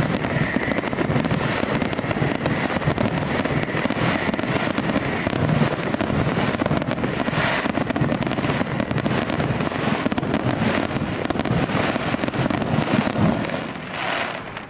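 Aerial fireworks display: shells bursting in quick succession with dense crackling, a continuous barrage that eases off near the end.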